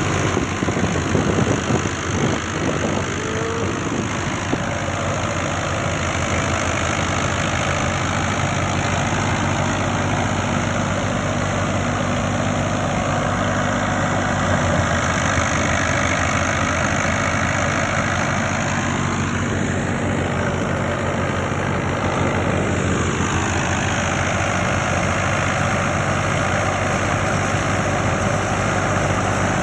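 Fiat 640 tractor's four-cylinder diesel engine running steadily under load as it belt-drives a wheat thresher, the threshing drum and fan whirring together with it in a continuous mechanical din. About twenty seconds in, a sound briefly rises and then falls back in pitch.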